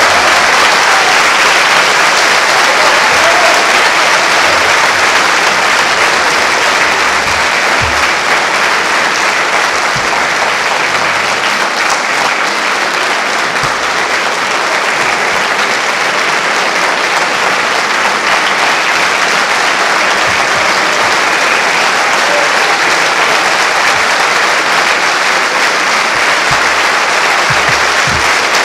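Large audience applauding in a dense, steady ovation that keeps going without a break.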